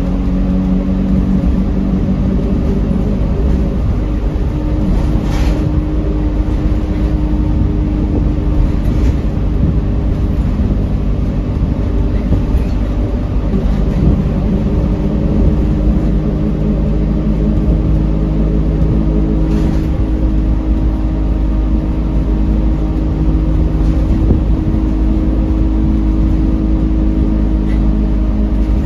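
Alexander Dennis Enviro 200 Dart bus running along, heard from inside the saloon: the diesel engine and Allison 5-speed automatic drivetrain pulling steadily over a deep road rumble, with a few short clicks from the bodywork.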